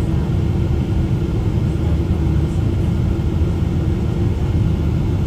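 Steady low rumble of a Boeing 777-300ER's cabin noise during the descent, heard from inside the cabin.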